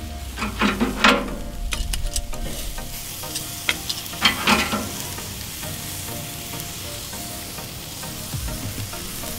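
Marinated chicken pieces sizzling and crackling on the grate of a charcoal kettle grill over hot coals. A few short knocks and scrapes stand out about a second in and again about four and a half seconds in.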